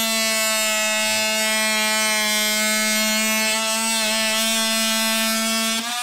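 TackLife 12-volt multi-tool with an oscillating blade running steadily as it cuts through PVC pipe, a high buzz that stays level. Right at the end it sags in pitch and winds down as the tool is switched off.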